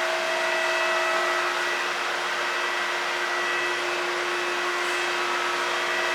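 Steady rushing noise of a motor-driven blower-type machine, with a constant hum and a high whine over it.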